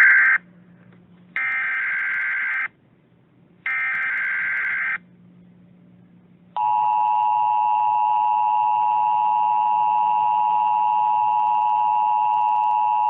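Emergency Alert System SAME header: three bursts of screeching digital data tones, one brief and two of about a second each, with short gaps between them. About halfway through, the steady, loud two-tone EAS attention signal begins and holds.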